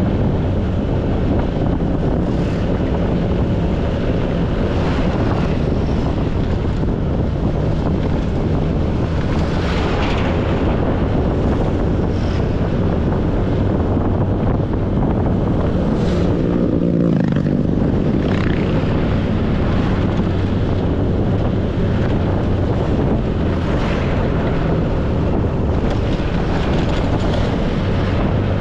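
Motorcycle engine running steadily under way, with wind buffeting the bike-mounted camera's microphone. About halfway through, the engine note briefly changes pitch, then settles back to a steady run.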